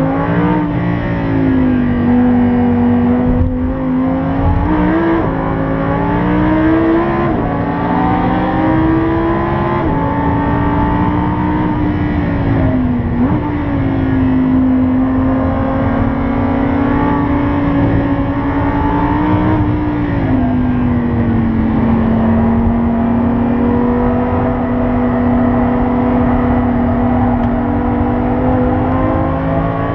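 Lamborghini Huracán's V10 engine heard from inside the cabin on track. Its pitch climbs and drops sharply at each of several gear changes in the first ten seconds, then holds a fairly steady pitch with a slower fall a little past the middle and a rise near the end.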